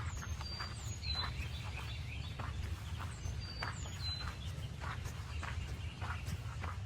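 Footsteps crunching on forest ground at a walking pace, over a steady low rumble. A bird gives short, high, down-slurred chirps a few times near the start and again around three seconds in.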